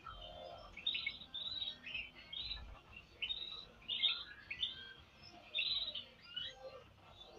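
Canaries chirping, a quick run of short, high calls repeated every half second or so.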